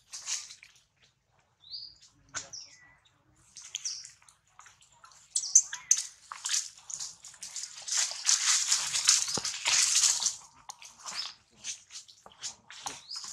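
Dry leaf litter crackling and rustling as macaques move and paw over it, with a few short high squeaks. The rustling is busiest from about seven to ten seconds in.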